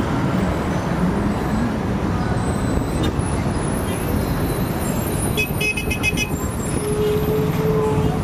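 Road traffic running steadily with a dense low rumble, a quick run of high chirps around the middle, and a vehicle horn sounding for about a second near the end.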